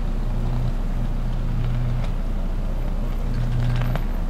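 High-voltage electrical arc burning at a substation line insulator: a loud, steady, low electrical buzz that swells and fades about once a second, with scattered sharp crackles, the sound of a live line fault arcing to ground.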